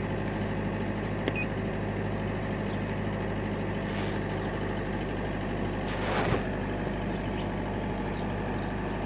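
The HDi diesel engine of a 2001 Peugeot 406 idling steadily, heard from inside the cabin. A short electronic beep comes just over a second in, and a brief rustle about six seconds in.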